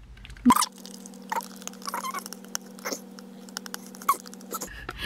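Rubbery modeling gel mask being stirred with a plastic spatula in a plastic tray: many small wet clicks and squelches over a steady low hum, starting with a sharper click about half a second in.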